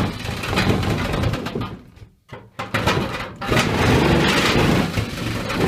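Handheld electric power tool running under load, cutting in two runs with a short break about two seconds in.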